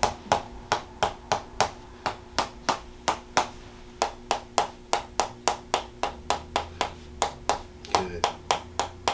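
Tok Sen massage: a wooden mallet tapping a wooden wedge held against the patient's neck and back, sharp knocks at about three a second with two brief pauses.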